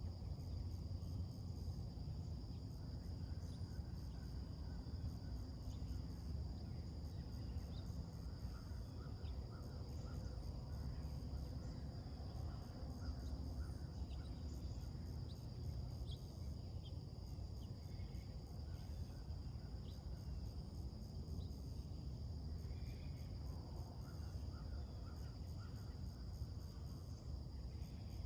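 Late-summer insect chorus: a steady high-pitched drone with a fast pulsing trill above it, and a few short, faint bird chirps scattered through, over a steady low rumble.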